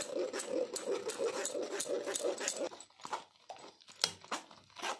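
Steel spoon scraping and pressing wet grape pulp against a stainless-steel mesh strainer, a quick run of scratchy strokes that thin out in the second half. For the first half or so a wavering whine sounds alongside, then stops.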